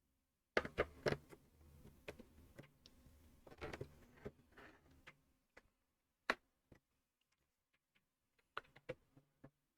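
Plastic LEGO pieces clicking and rattling as they are picked from sorting trays and handled, a rattling patch for the first few seconds followed by a few separate sharp clicks.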